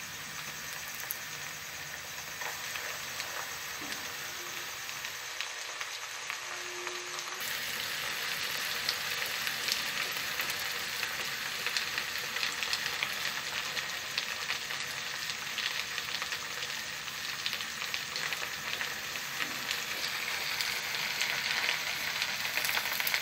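Chopped onions and ginger-garlic paste frying in hot oil in a wok, a steady sizzle and crackle while a spatula stirs them. The onions are sautéing until soft. The sizzle grows a little louder about seven seconds in.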